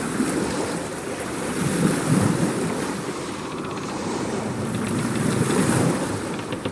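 A steady rushing noise that swells up about two seconds in and again near the end, then eases off each time.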